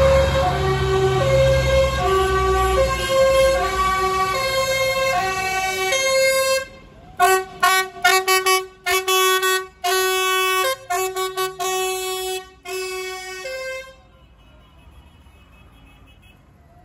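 A two-tone siren on a vehicle in the convoy, switching back and forth between a low and a high note. From about seven seconds in it sounds in short, stuttering blasts, then stops about fourteen seconds in. A tractor engine rumbles past at the start.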